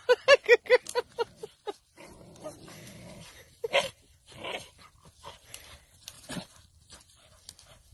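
Dog barking in a rapid run of short barks, about five a second, that stops about a second and a half in; then quieter scuffling with a few single short barks.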